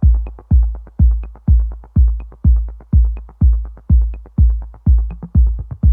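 Electronic background music driven by a heavy, booming kick drum about two beats a second, with lighter percussion between the beats.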